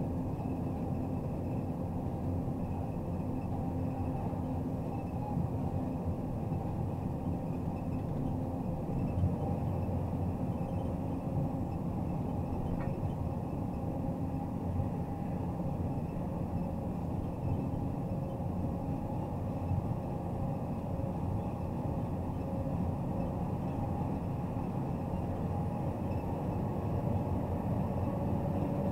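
MAZ Zubr 32-tonne truck crane under way: a steady diesel engine drone with road noise.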